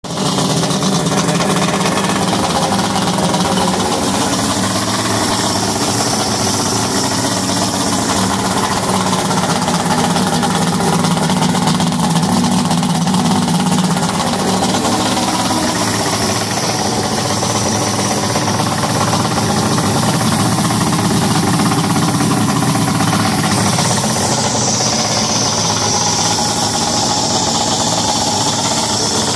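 Johnson Ocean Runner 225 V6 two-stroke outboard running steadily with its cowling off, just after a carburetor rebuild and a new VRO fuel pump hose.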